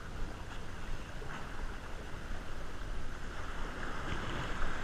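Wind buffeting the microphone over the wash of sea waves against concrete breakwater blocks.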